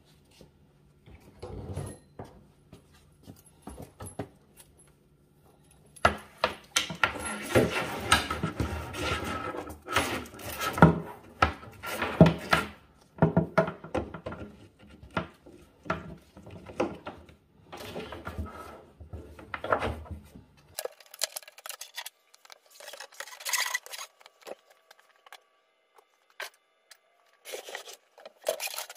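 Irregular rubbing, scraping and light knocking as a dishwasher's braided water supply line, drain hose and power cord are handled and pulled through holes in a wooden sink base cabinet.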